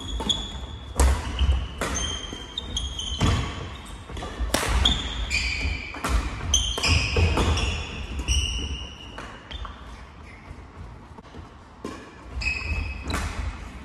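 Badminton doubles rally: rackets striking the shuttlecock in sharp cracks, sneakers squeaking on the wooden hall floor and feet thudding as the players lunge. The play is busiest through the first half, goes quieter for a few seconds, then picks up again near the end.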